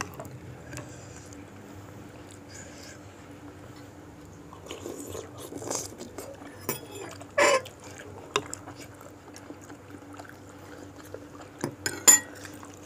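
Cutlery clinking and scraping against a bowl of bakso, scattered small clicks with a few sharper knocks, over a faint steady hum.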